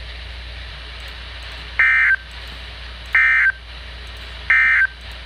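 Emergency Alert System end-of-message signal: three short bursts of screeching digital data tone, evenly spaced about a second and a half apart, closing the severe thunderstorm warning broadcast. A steady radio hiss runs underneath.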